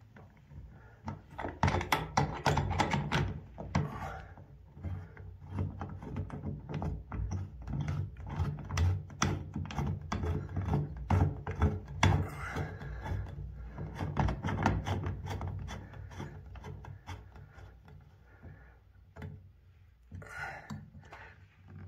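Shower diverter fitting being screwed by hand onto the shower arm: irregular rubbing, scraping and small knocks as the threads are turned. Busiest through the first two-thirds, then it thins out.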